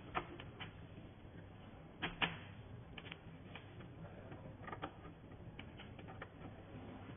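HDMI cable plugs being handled and pushed into the ports of a metal rack-mount video wall controller: scattered light clicks and knocks, the loudest two coming close together about two seconds in.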